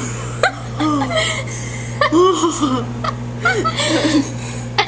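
Microwave oven running with a steady low hum while marshmallows cook inside, under laughing and squealing voices.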